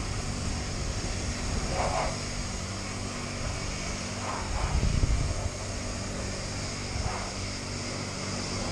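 A steady low mechanical hum from an engine or machine, with brief louder sounds about two seconds and about four and a half seconds in.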